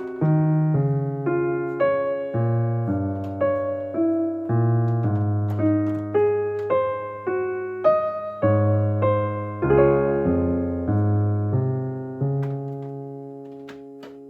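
Background music: an electric piano playing a gentle melody over chords, notes struck about twice a second, ending on a held chord that slowly fades out.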